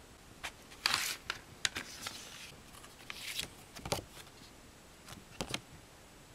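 A plastic CD jewel case being opened and handled, with several sharp clicks and short rustles of a paper insert card being slid out from over the disc.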